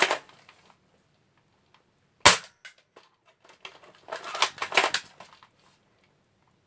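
BB gun firing a single sharp shot about two seconds in, followed a couple of seconds later by a quick run of mechanical clicks and rattles from the gun being handled.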